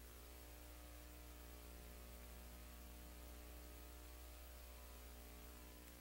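Near silence: a faint, steady mains hum with light hiss.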